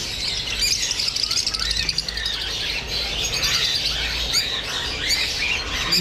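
A cage of lutino rosy-faced lovebirds chirping, many birds at once: dense, shrill, overlapping calls.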